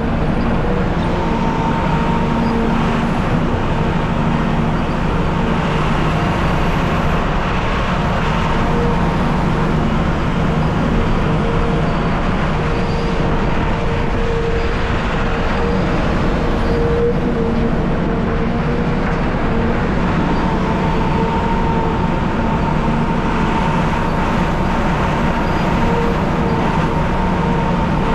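CAT 740B articulated haul truck's diesel engine running steadily, with a constant whine over the engine noise.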